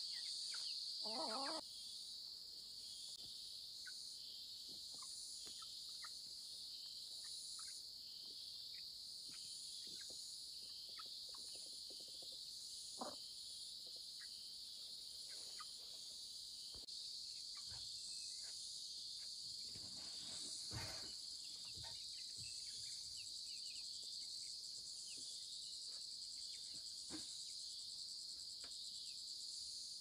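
Steady high-pitched drone of an insect chorus, with a few short chicken clucks scattered through it.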